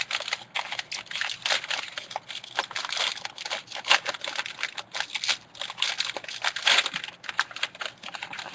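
Foil trading-card pack wrapper being torn open and crinkled by hand: a dense, irregular run of crackles and rustles.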